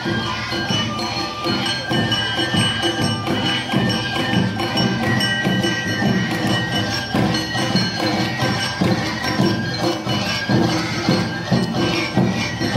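Live Awa Odori festival music: drums, a clanging kane hand gong, shamisen and bamboo flute playing a lively piece over a steady, quick beat.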